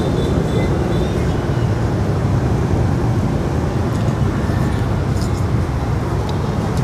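Steady rumble of street traffic, with a few light clicks of utensils on a bowl now and then.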